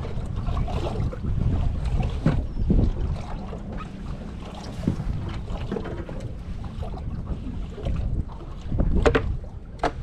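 Strong wind buffeting the microphone in an open boat, a steady low rumble, with scattered small knocks and splashes and a sharper cluster of knocks about nine seconds in.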